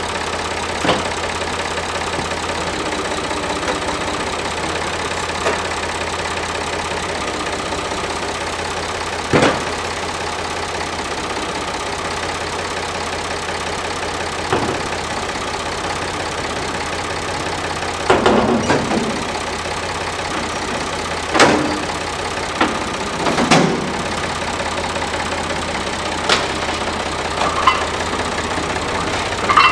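Case/David Brown 885 tractor's three-cylinder diesel engine running steadily while its front loader works, with about a dozen short sharp knocks spread through.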